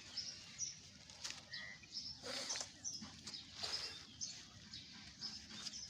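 Small birds chirping and twittering repeatedly, with a few brief rustles about two and three and a half seconds in.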